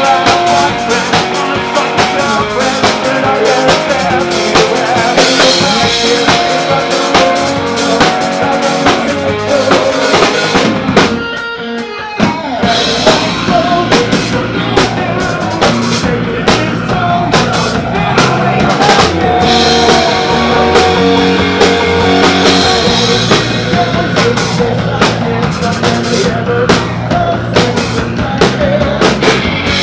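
Live rock band playing loudly: drum kit, electric guitars and bass guitar. About eleven seconds in, the drums and cymbals drop out for roughly a second, then the band comes back in with a heavier bass line under the beat.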